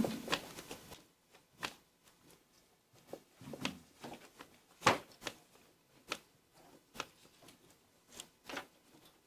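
Scattered light knocks and clicks with paper rustling as a folder's pages are handled; the loudest knock comes about five seconds in.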